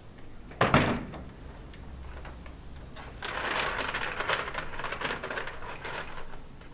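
A white paper bag being handled: a sharp paper snap a little under a second in, then a stretch of crinkling and rustling paper from about three seconds in as the bag is worked open, fading out just past six seconds.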